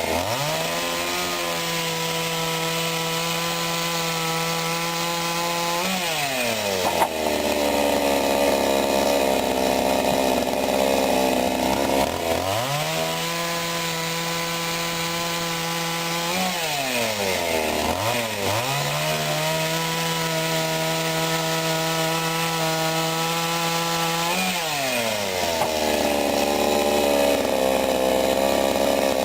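Sadko GCS 510E two-stroke petrol chainsaw revving hard, then dropping back to a low idle, three times over. Each rise and fall in pitch is a smooth glide.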